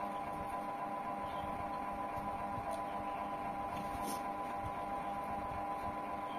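Steady hum of a running appliance, holding several fixed tones, with a faint click about four seconds in.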